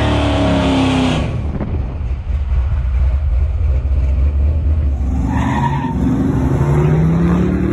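Chevrolet K20 squarebody pickup's small-block V8 running loud under throttle, its pitch falling about a second in and settling into a steady low exhaust drone. Near the end the engine revs, rising in pitch.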